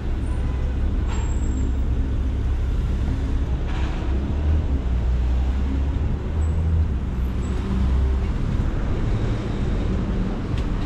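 Street traffic noise, with a low vehicle rumble that stops about eight seconds in.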